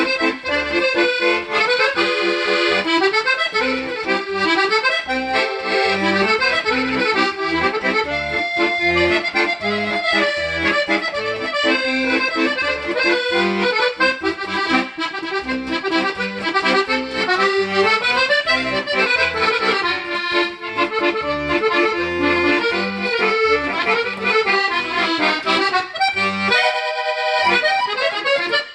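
Italian Vercelli bayan (button accordion), freshly repaired and tuned, played continuously: a flowing melody and chords over a steady left-hand bass rhythm. The bass drops out briefly near the end.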